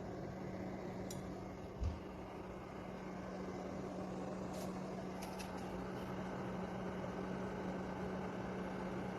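Steady low hum over a background hiss, with a few faint clicks and one soft knock about two seconds in.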